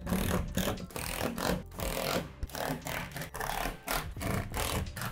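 Cordless drill driving screws into a plastic shed roof panel, in a run of short, uneven bursts.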